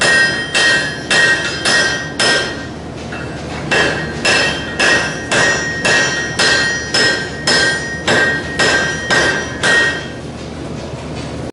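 Hand hammer striking hot steel on an anvil, about two blows a second, each with a bright metallic ring. There is a short pause after the first five blows, and the hammering stops about ten seconds in.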